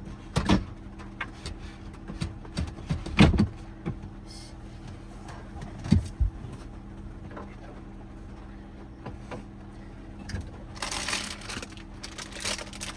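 Knocks and thumps of things being handled and set down inside a small van, the loudest about three seconds in, then a rustle near the end, over a faint steady hum.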